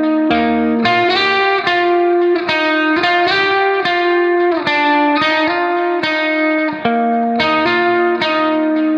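Background music: a plucked-string melody played one note after another.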